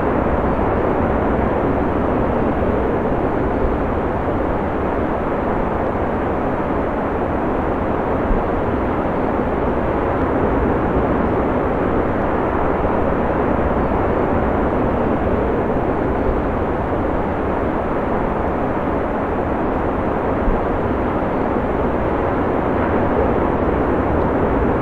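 Heavy ocean surf breaking, a steady roar with no separate wave surges.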